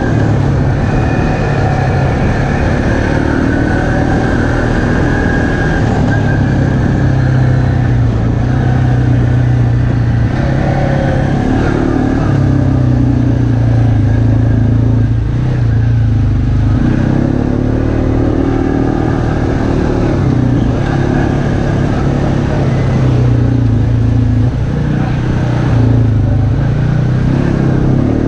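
ATV engine running at speed on a dirt trail, its pitch rising and falling as the throttle is eased off and opened again several times.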